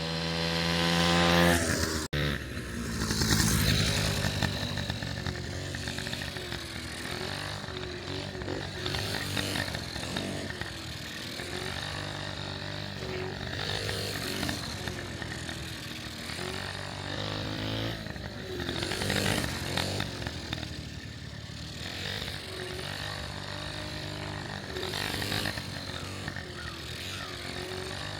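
1981 Honda Express SR's small two-stroke scooter engine revving up and easing off as the scooter is ridden, its pitch rising and falling over a rushing of wind.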